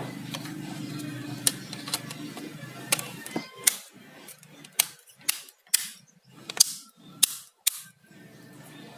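A run of sharp, irregular clicks, about a dozen, coming faster in the second half. A low steady hum sits under the first half and stops about four seconds in.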